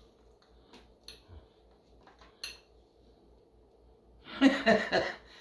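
A few light clicks and clinks of cutlery against a dish, followed about four seconds in by a brief voice sound that is the loudest thing heard.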